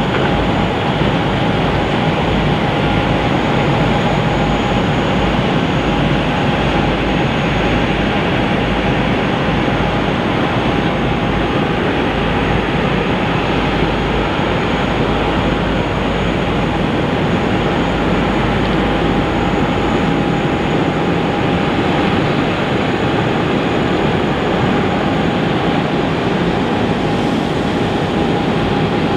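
Airliner jet engines running steadily at low power: a constant whine over a loud, even rush of noise.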